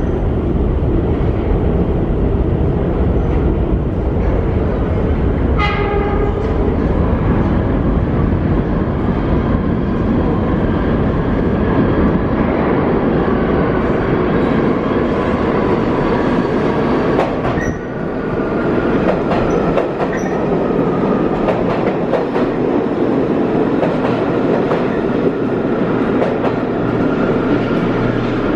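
A four-car set of R46 New York City subway cars running through an underground station without stopping, making a loud, steady rumble on the rails. There is a short horn blast about six seconds in, and a high whine as the train passes.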